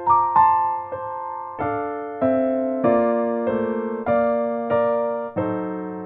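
Background music: a piano playing a slow melody, one note about every half second or so, each struck and left to ring and fade.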